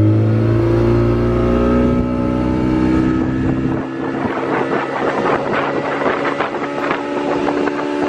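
Speedboat motor running hard and climbing gently in pitch as the boat gets under way, with a rough rushing noise building in from about halfway through.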